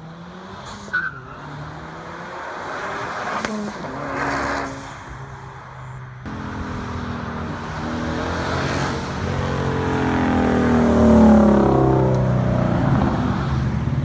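Cars accelerating hard and passing by, the engines revving with pitch gliding up and down as they go through the gears. The sound changes abruptly about six seconds in, and the loudest pass comes about eleven seconds in.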